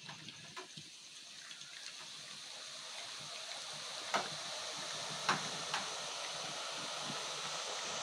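Boondi batter dripping through a perforated ladle into hot oil in a wok, the oil sizzling and growing steadily louder as more drops fry. A few sharp clicks come about four and five seconds in.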